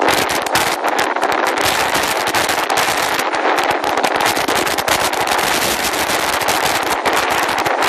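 Hurricane-force wind buffeting the microphone: a loud, continuous rush broken by dense crackling, over the noise of heavy breaking surf.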